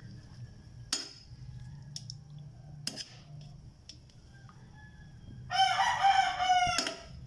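A rooster crowing once, a loud drawn-out call of about a second and a half near the end. Two sharp knocks come earlier.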